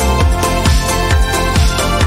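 Upbeat electronic background music with a steady beat.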